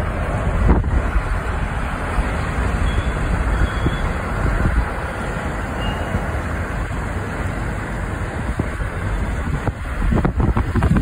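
Steady road noise from a moving car, with a low rumble of tyres and wind.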